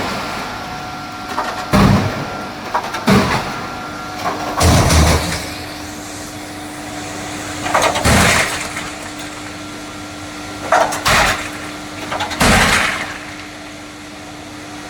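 Machinery running with a steady hum, interrupted about six times by short, loud, noisy surges lasting under a second each.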